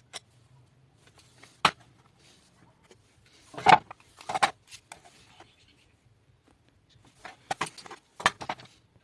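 Scattered knocks and clattering clicks of hard parts being handled: a single sharp knock, then two short bursts of rattling clinks.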